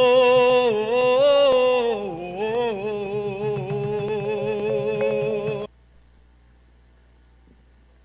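Solo male voice chanting unaccompanied into a microphone: one long held line with slow, wavering pitch ornaments. It cuts off suddenly about six seconds in, leaving only a faint low hum.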